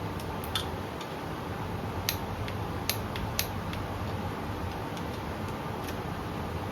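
Hand tools clicking on the engine, about half a dozen sharp clicks at irregular intervals, over a steady low hum.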